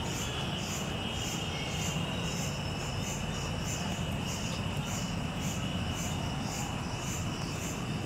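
Crickets chirping at night: regular high chirps about twice a second over a steady insect trill, with a low rumble of background noise.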